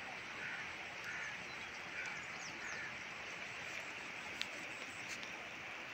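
Steady rushing of floodwater flowing across fields, with faint bird calls now and then and a single sharp click a little past the middle.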